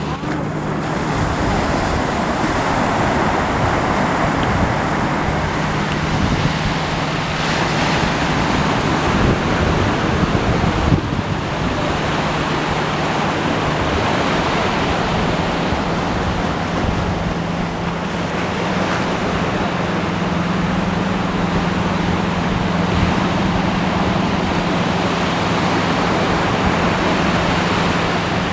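Ocean waves and surf in a continuous rush. A thin steady low hum runs underneath and steps up slightly in pitch about halfway through.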